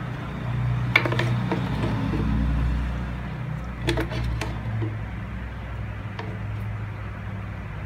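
Thick avocado shake being poured and spooned out of a blender jar into a cup. The spoon and jar clink and knock against the cup a few times, about a second in and again around four seconds in, over a low steady hum.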